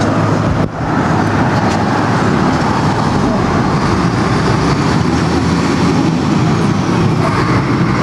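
Loud, steady road traffic noise, with a brief dip about a second in.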